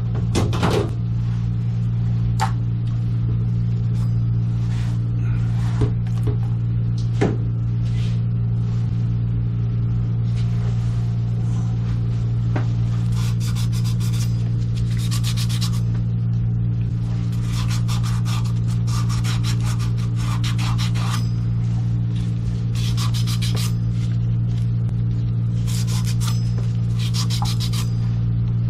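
A steady low hum runs throughout. Over it come a few sharp knocks in the first several seconds, then repeated rasping, scraping strokes in several stretches of one to three seconds each in the second half.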